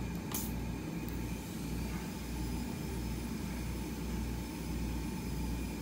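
High-speed air-turbine dental handpiece running with a steady whine over a low hum, its pitch rising about two seconds in, as a tooth is prepared for an amalgam filling. A brief hiss sounds near the start.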